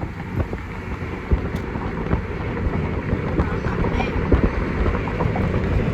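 Road and engine rumble of a moving car heard from inside the cabin, growing a little louder toward the end.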